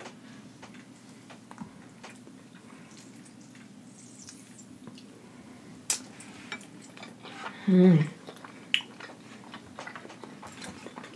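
Close-up eating sounds: scattered wet clicks and smacks from biting and chewing sauce-covered chicken held in the fingers, with a short falling 'mmm' of enjoyment about eight seconds in, the loudest sound. A steady low hum runs underneath.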